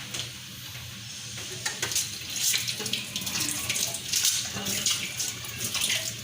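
Water boiling in the base of a couscoussier, bubbling and spluttering irregularly as it steams the dried figs in the top, louder from about two seconds in.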